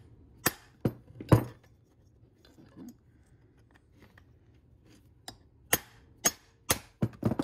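Steel hammer tapping a center punch held against the flywheel of an Echo CS-2511T chainsaw, knocking the flywheel loose from the crankshaft. Three sharp metallic taps come in the first second and a half, then a pause, then a quicker run of about seven taps near the end.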